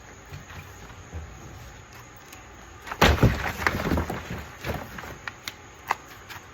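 Packaging being pulled off a boxed tool cabinet: a loud burst of rustling and knocking about three seconds in, then a few scattered clicks and taps.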